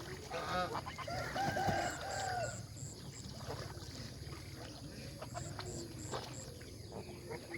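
Farm poultry calling: a few short calls, then one drawn-out call lasting about a second, followed by fainter scattered calls.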